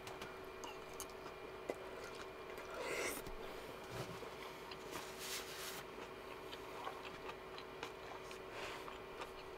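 Faint scattered clicks and soft rustles of food and kitchen utensils being handled, over a steady low hum.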